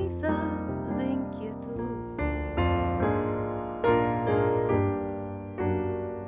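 Digital piano playing a slow bolero accompaniment: chords struck every half second to a second, each left to ring and fade.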